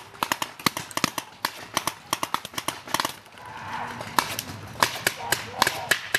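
Paintball markers firing a rapid, uneven string of pops, several a second, thinning out to scattered single shots about three seconds in.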